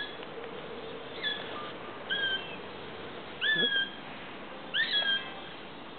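Young Cooper's hawk calling: four short, high whistled calls about a second apart, contact calls between brothers in neighbouring trees.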